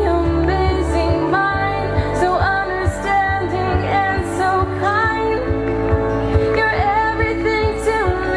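Music: a song with a singing voice over a steady beat and bass.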